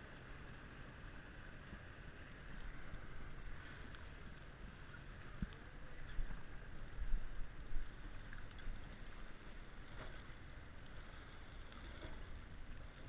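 Small boat's outboard motor running low, under wind buffeting and water sloshing against the hull, with a few louder low thumps about seven seconds in.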